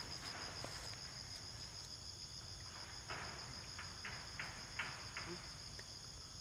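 Steady high-pitched insect chorus with a fast, even pulse. A few brief faint clicks or rustles come in the middle.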